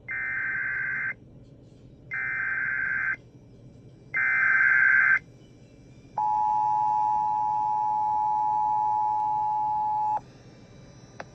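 Emergency Alert System tones: three one-second bursts of harsh, buzzing SAME digital header data about a second apart, encoding a blizzard warning, then the EAS two-tone attention signal, two steady tones sounded together, held for about four seconds.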